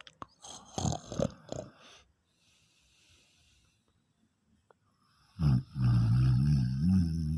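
A man snoring in his sleep: a few short, loud rasping snores, then a faint breath in. About five and a half seconds in comes a long, loud snore with a low, wavering pitch that cuts off suddenly.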